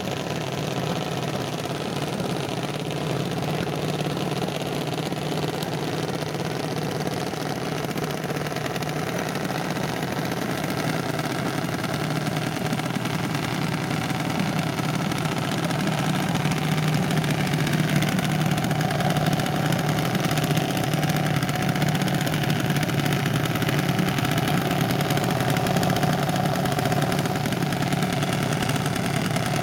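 Single-cylinder junior dragster engine idling steadily, getting a little louder about halfway through.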